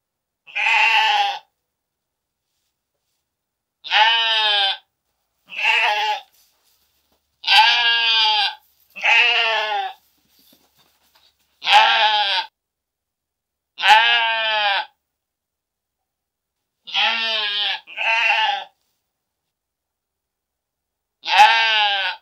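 Sheep bleating: about ten separate bleats, each a second or shorter, with silent gaps between them, two of them back to back near the middle.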